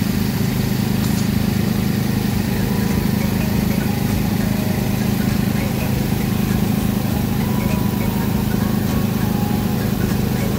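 Komatsu PC210 long-reach excavator's diesel engine running steadily with a deep, even hum while its long arm works.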